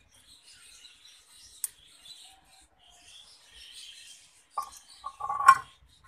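Faint, high begging chirps of budgerigar chicks, with clicks and clinks of a plastic syringe and spoon against a glass jar as hand-feeding formula is drawn up; the clinks and knocks are loudest near the end.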